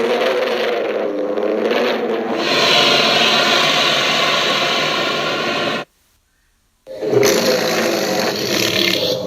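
Tyrannosaurus rex roar sound effect: a long, rough, pitched roar that cuts off suddenly after about six seconds, then after a second of silence another roar begins.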